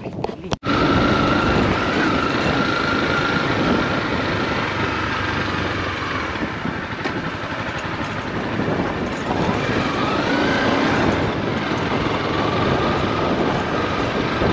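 Motorcycle running on the move, its engine note carried under a steady rush of wind noise on the microphone. A thin whine wavers and rises as the engine speed changes. It starts abruptly about half a second in.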